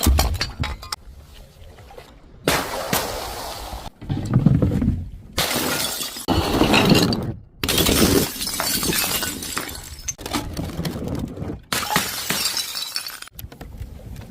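Glass bottles shattering and crunching, about six short breaks cut one after another, each starting with a sharp impact followed by the clatter and tinkle of broken glass.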